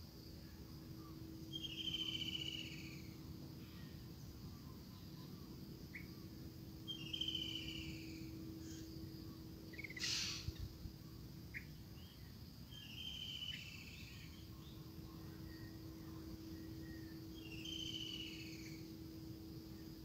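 A high, trilled animal call that falls in pitch, heard four times about five seconds apart, over a steady low hum. A single sharp click comes about halfway through.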